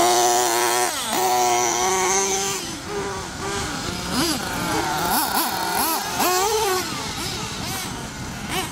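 Several nitro RC buggies' small two-stroke glow engines racing, their high-pitched whine rising and falling as the throttles open and close, with more than one engine often heard at once.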